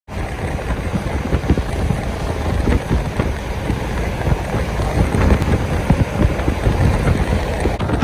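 Wind rushing and buffeting the microphone of a moving truck, over steady road noise, with irregular gusts throughout.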